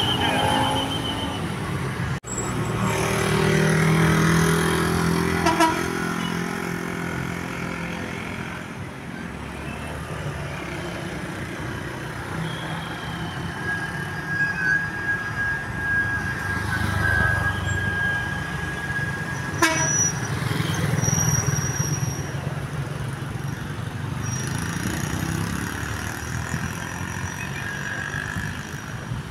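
Buses running with a low engine hum under long, steady multi-tone horn notes, typical of a Basuri V3 'telolet' bus horn. The sound changes abruptly about 2 seconds in and again near 20 seconds.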